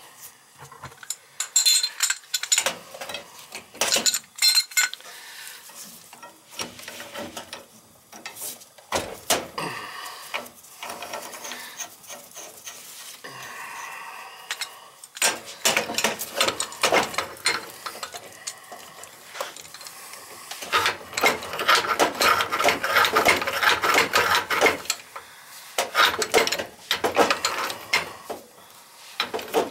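Metal tools and gas pipe fittings clinking, knocking and scraping as they are handled and worked around a boiler's gas valve, in irregular bursts, with a longer stretch of dense scraping and rubbing about three quarters of the way through.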